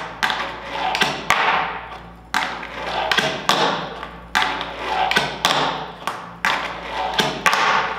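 Berlinwood wooden fingerboard with Blackriver trucks and wheels clacking against a desk during tre flip attempts that are not landed. There is a sharp clack about once a second, and each one trails off before the next.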